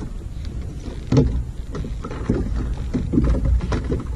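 Wind buffeting the camera microphone over water slapping against a fishing kayak's hull on choppy sea, with irregular knocks, the loudest about a second in.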